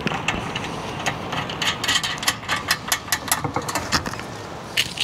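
Quick, irregular metallic clicks and clinks as steel bolts and nuts are fitted through the stamped steel rails and legs of a workbench frame.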